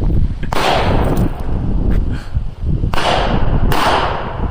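Four gunshots, each a sharp crack with a short fading tail; the second is fainter than the others.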